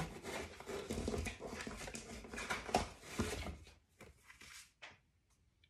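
Paper and cardboard packaging rustling and knocking as items are handled in a shipping box, busy for the first three seconds or so, then a few soft separate rustles and clicks.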